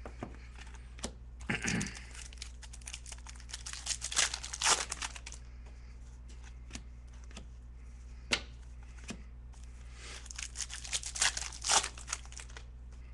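Foil trading-card pack wrappers being torn open and crinkled, in three bursts of crackling, with a few single light clicks between.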